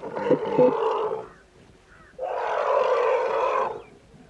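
Asian elephant calf calling in distress as it is dragged out of deep mud by a rope: two long, harsh calls, the second starting about two seconds in and lasting about a second and a half.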